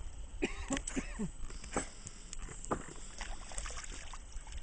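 A hooked trout thrashing at the surface in the shallows as it is brought to the landing net, making a string of short, sharp splashes and knocks. A few short grunt-like vocal sounds come in the first second and a half.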